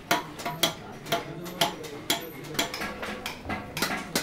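A hammer beats on a copper pot at an even pace of about two blows a second. Each blow gives a sharp metallic strike with a short ring: a coppersmith working the metal by hand.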